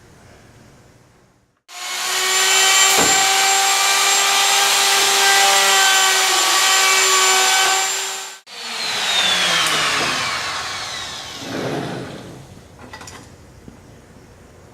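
Butt router of a Norfield 350H hinge routing station running at full speed for about seven seconds while routing a hinge mortise into a door jamb. It then cuts off and spins down in a falling whine that fades over a few seconds.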